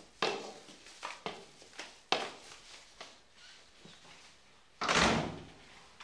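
A wooden door being handled: a series of sharp knocks and clunks from the door and its handle, then a louder, longer heavy bump near the end as the door is pushed shut.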